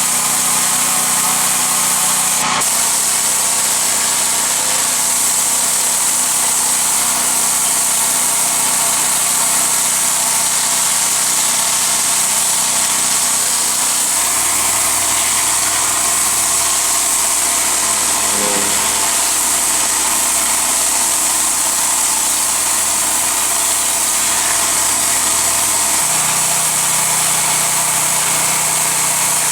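Petrol-engined pressure washer running steadily with its water jet hissing as it sprays, the engine note shifting for a stretch in the middle.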